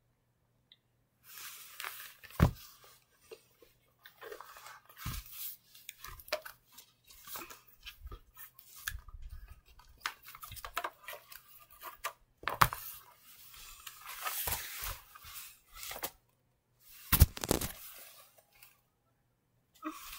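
Close rustling and handling noise in irregular spells, with four sharp knocks, from a tablet in its cover being handled and moved about.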